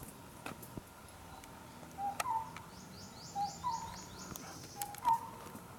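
Birds calling: one repeats a two-note call, a short low note then a slightly higher one, about every second and a half; a little after three seconds in another gives a quick run of high, falling chirps.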